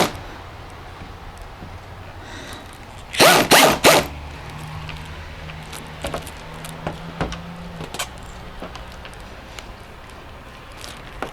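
Ratchet wrench tightening a headlamp assembly mounting bolt: a quick cluster of three short rasping ratchet strokes about three seconds in, then scattered light clicks. A faint low hum runs for a few seconds after the strokes.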